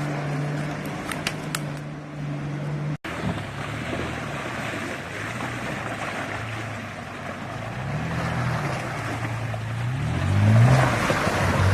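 Off-road vehicle engine running steadily, then revving up and down several times, growing louder near the end. The sound cuts out sharply for an instant about three seconds in.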